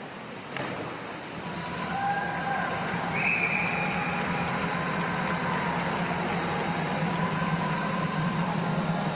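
A platform diver's entry into the pool gives a short sharp splash about half a second in. Then a steady rushing noise of the indoor pool hall swells up and holds, with a few faint held tones over it.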